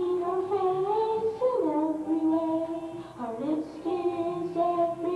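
A group of boys singing long held notes in close harmony without instruments, the chord changing about one and a half and three seconds in.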